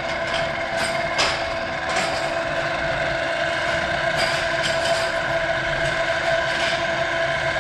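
Remote-control car's electric motor and gears running steadily with a constant whine, and scattered clicks and crackle from its tyres rolling over concrete strewn with bits of feed.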